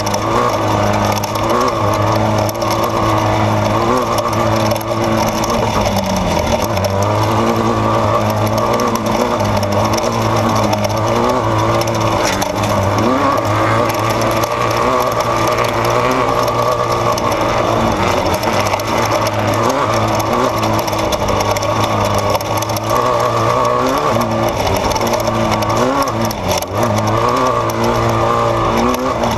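Off-road desert race vehicle's engine running hard and continuously, its pitch rising and falling as the throttle changes over rough terrain, with a steady low drone and noise from the vehicle throughout.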